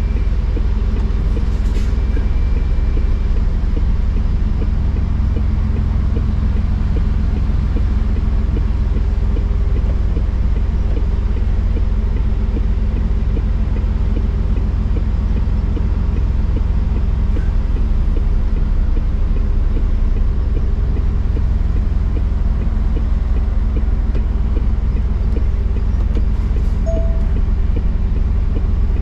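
Truck's diesel engine running steadily at low speed, a constant low drone heard from inside the cab. A couple of faint short beeps sound near the start and again near the end.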